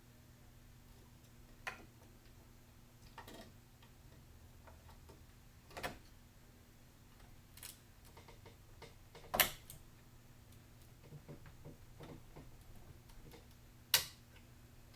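Scattered clicks and light knocks of hands working on computer hardware, irregularly spaced, the two loudest a little past the middle and near the end, over a faint steady hum.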